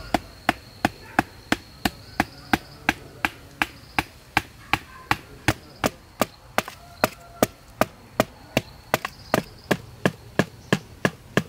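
Machete chopping a green bamboo pole, a steady run of sharp blows at about three a second.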